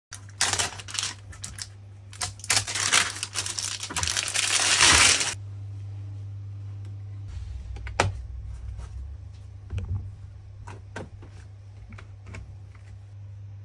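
About five seconds of loud crackling, rustling noise, then a steady low hum with scattered sharp metal clicks and clanks as a ski binding mounting jig is handled and clamped onto a ski.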